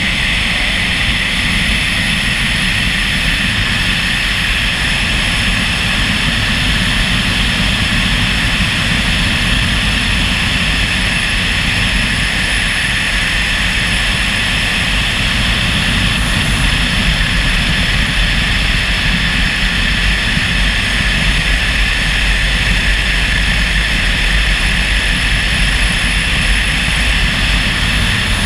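Motorcycle cruising at a steady speed: wind rushing over the microphone with the engine's drone underneath, even and unchanging.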